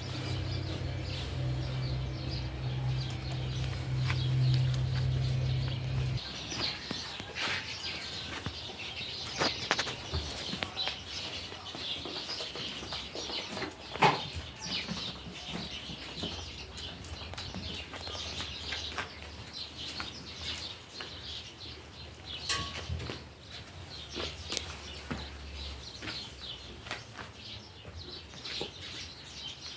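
Farmyard ambience of many birds chirping in short calls, with a steady low rumble for the first six seconds and a single sharp knock about halfway through.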